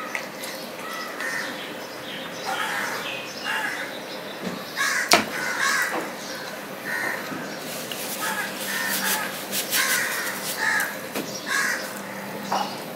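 Crows cawing repeatedly in short, irregular calls. Behind them, fingers mix rice on a steel plate, and there is a single sharp click about five seconds in.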